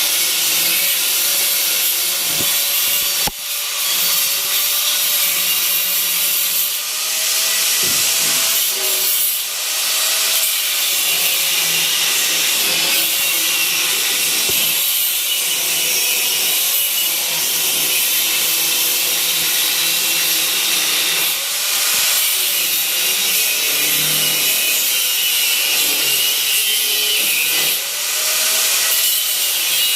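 Power sander running steadily against a surface: a continuous high abrasive hiss with a faint wavering whine underneath.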